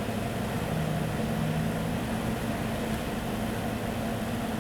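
Steady low hum of a running vehicle engine, with an extra low tone sounding for about a second near the start.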